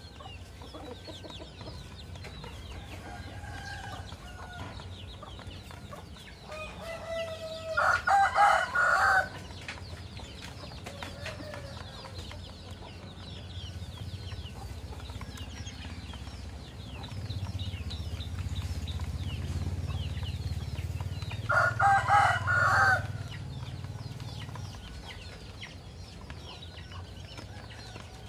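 Rooster crowing twice, about fourteen seconds apart, each crow lasting about a second and a half, with softer chicken calls between.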